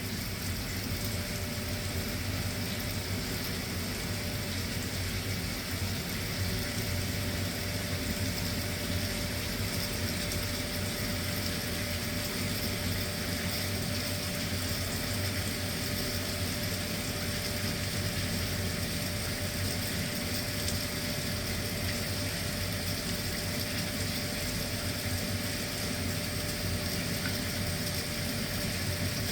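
Tankless water heater running steadily with hot water drawn: a constant low hum and hiss with a faint steady tone, and no shut-off.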